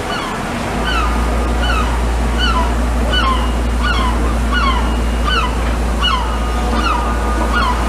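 A gull calling over and over: short, falling, yelping notes about one and a half a second, some overlapping, over a low wind rumble on the microphone that sets in about a second in.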